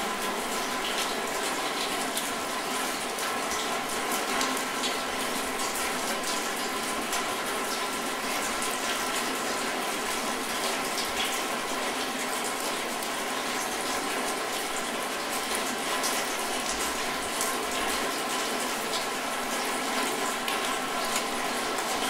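Steady rain: a constant hiss of falling water with many small separate drop hits, even in level throughout.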